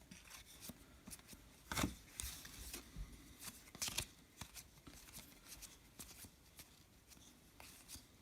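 Trading cards being handled: faint scattered clicks and rustles as the cards are shuffled through, with a couple of louder snaps about two and four seconds in.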